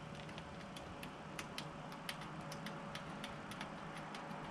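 Faint, irregular light clicks and ticks, several a second, as the plastic-knobbed drain screw on a Pit Boss pellet grill's hopper is turned by hand to tighten it back in.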